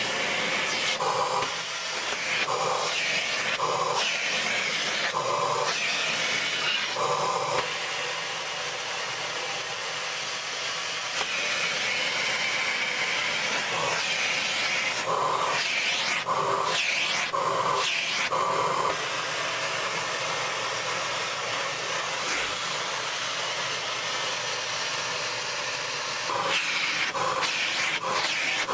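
Dyson vacuum cleaner running with a steady suction hiss that changes in runs of regular strokes, about one a second, as the nozzle is worked back and forth over a cat's fur.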